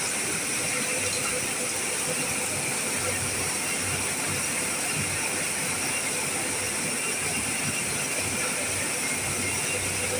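A machine running steadily: an even hiss with faint steady tones and no change in pace.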